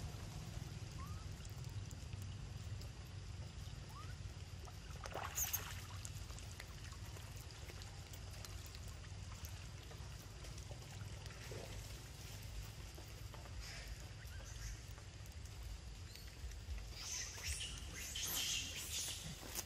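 Macaques moving through shallow muddy floodwater, water splashing faintly over a steady low rumble. A sharp knock about five seconds in, and a quick run of short, high sounds near the end.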